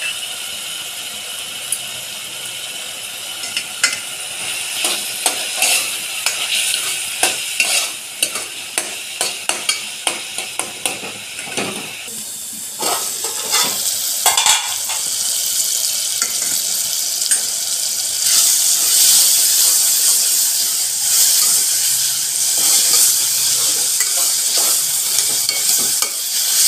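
Chopped tomato, onion and coriander stems frying in oil in an aluminium pot, sizzling steadily while being stirred. A run of sharp clicks and clinks fills the first half, and the sizzle grows louder in the second half.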